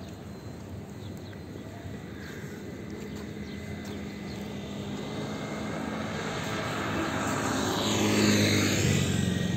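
An engine drawing steadily closer, growing louder over several seconds and loudest near the end.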